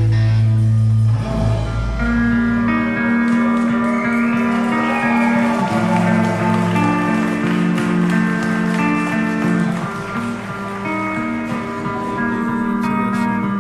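Band playing live, guitar-led music with long held notes and a sliding note about four seconds in.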